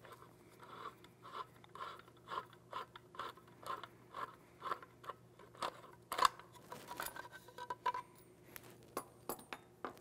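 Allen key turning out the buttstock retainer screw of a VR80 shotgun: a run of faint metallic clicks and scrapes, about two a second, with one louder click about six seconds in.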